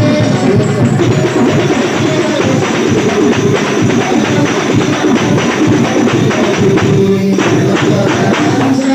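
Hadrah ensemble of hand-struck rebana frame drums playing a fast, dense rhythm, with a brief break about seven seconds in.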